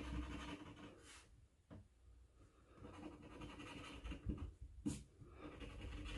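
Scratch-off lottery ticket being scratched, the latex coating scraped off in stretches of short scratching strokes with a pause in between and a couple of sharp clicks.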